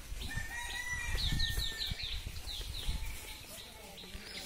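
Small birds chirping: runs of quick, short notes that each slide downward, several a second, with a thinner held note early on. Low rumbling thumps run underneath.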